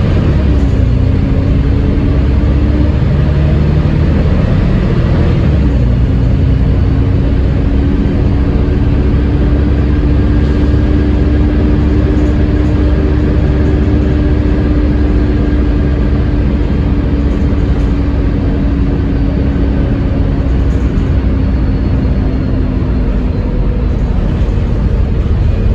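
Wright Eclipse Gemini double-decker bus with a Voith automatic gearbox, running with a loud hoovering whine. The pitch drops at gear changes about half a second and five and a half seconds in, then holds steady.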